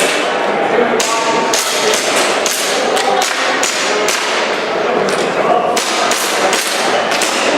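Airsoft pistol firing a rapid string of shots, about two or three a second, during a practical-shooting stage, with background voices underneath.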